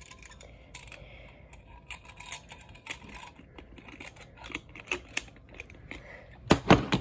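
Small clicks and taps of a glass clip-top jar being handled and shut: the glass lid and wire clasp clinking against the jar. A louder clatter of knocks comes near the end.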